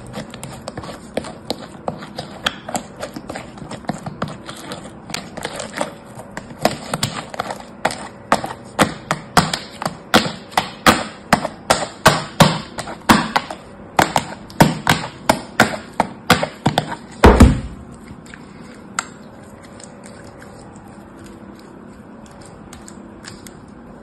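Fingers pressing and poking glitter slime mixed with foam beads in a plastic tub, making a quick run of sharp squishy clicks, about two to three a second, that grow louder. They end in one loud squelch a little past two-thirds of the way through, followed by quieter soft handling of the slime.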